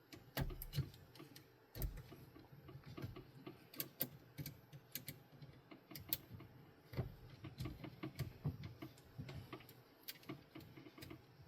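Irregular small clicks and taps of hard plastic being handled and fitted: 3D-printed chain link parts and PTFE tubes pushed into place by hand, with a few soft handling thumps.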